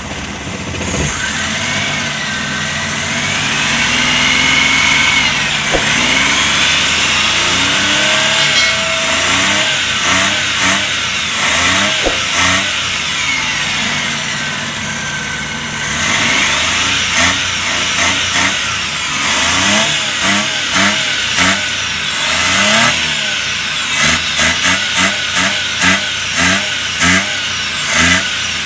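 Suzuki Multicab's F6A three-cylinder carburetted engine running just after a hard start, revved up and down, then blipped in short repeated bursts over the second half. It still runs shaky, which the mechanic puts down to water left in the fuel system.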